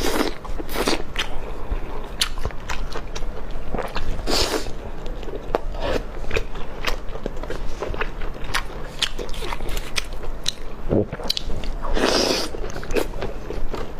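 A person biting and chewing crunchy food close to the microphone: a steady run of crisp crunches, with a few louder bites.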